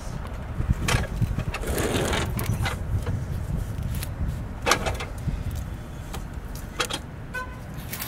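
A lawn mower being tipped over onto its side on concrete: a scrape and several sharp knocks of its metal deck and plastic wheels, over a steady low rumble.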